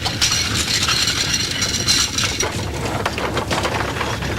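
Earthquake sound effect: a steady low rumble with dense rattling and clattering, as of shaking objects.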